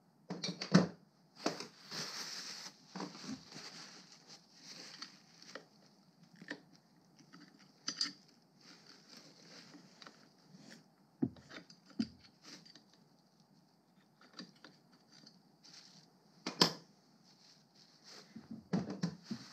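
Metal clutch plates and friction discs of a Sachs moped engine being handled, lifted out and set down on a steel workbench: scattered clinks and knocks, a few of them sharp, with stretches of rustling from a paper shop towel.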